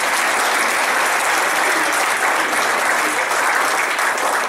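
A roomful of people applauding, a steady round of clapping that holds level throughout.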